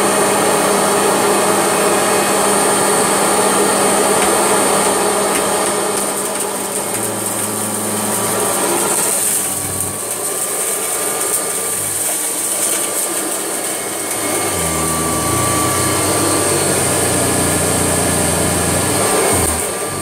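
Kirby Legend II upright vacuum cleaner running with a steady high whine, its motor note shifting a few times as it is pushed over a mat, picking up spilled mess.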